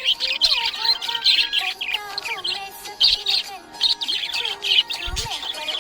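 Budgerigar chirping in a busy, unbroken stream of quick high chirps with lower gliding notes.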